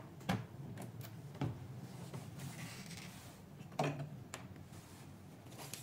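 Scattered sharp clicks and light knocks as a microneedling handpiece's cable connector is pushed into a socket on the machine's panel and the handpiece is handled. The clicks come singly, with the loudest near the start and again about four seconds in.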